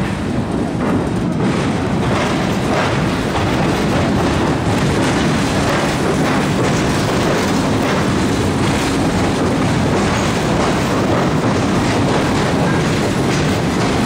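A Tobu line train crossing the steel truss railway bridge right beside the footway, its wheels clattering steadily over the rails and running loud throughout.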